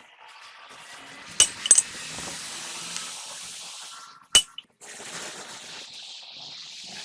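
Sharp metal-on-metal clinks, a quick pair about a second and a half in and a single one about four seconds in, over a steady high hiss.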